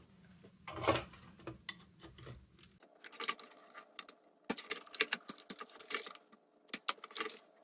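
Scattered clicks, taps and clinks of small metal lantern parts being handled and worked by hand.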